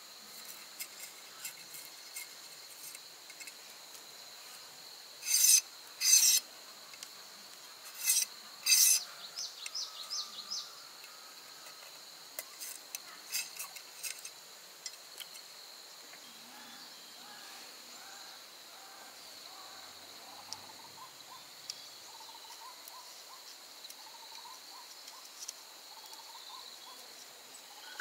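Steady high chirring drone of insects, with four loud short rasping scrapes in two pairs about five to nine seconds in, and lighter scattered ticks after them.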